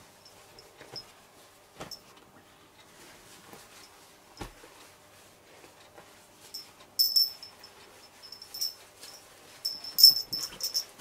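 Hands handling and folding a pair of denim jeans: the fabric rustles and rubs, with sharp scratchy crinkles that come thicker and louder in the second half. There is a single soft knock twice in the first half.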